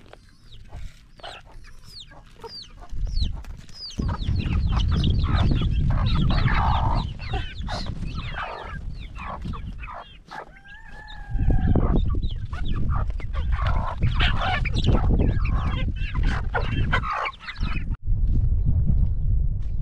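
Flock of free-range village chickens clucking and cheeping as they peck at feed, many short overlapping calls, with one longer drawn-out call about ten seconds in. A strong low rumble runs underneath from about four seconds in.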